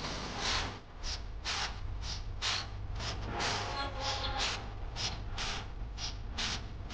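Lesser green leafbird singing a rapid string of short, harsh chattering notes, about two a second, over a steady low hum.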